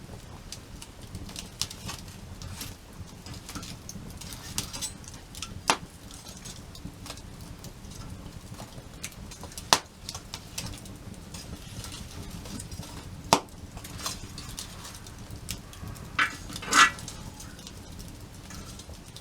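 Wood fire crackling, with scattered small ticks, sharp pops about six, ten and thirteen seconds in, and a louder brief burst near the end.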